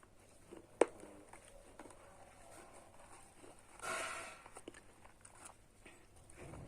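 Someone biting and crunching a hard, brittle, chalky piece in the mouth: a sharp snap about a second in, then a short, louder crunch around four seconds, with faint small crackles between.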